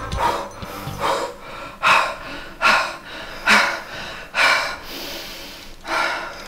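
A person breathing heavily in a steady rhythm, about one loud breath every 0.8 seconds.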